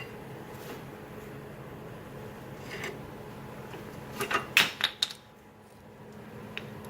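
Old rear brake pads being pried out of the caliper bracket with a flathead screwdriver: a few light metal clicks, then a quick cluster of sharp clacks about four to five seconds in, over a steady low hum.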